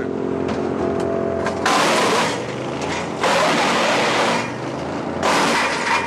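Först ST6P HD wood chipper with its Vanguard 37 hp V-twin petrol engine running steadily. It chips a thick log on the fast feed-roller setting, which makes a big chip, in three loud bursts of chipping about two seconds in, about three to four seconds in and again near the end.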